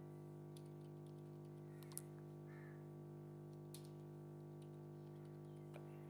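Faint computer keyboard typing and a few scattered clicks, the clearest about two seconds in, over a steady low hum; otherwise near silence.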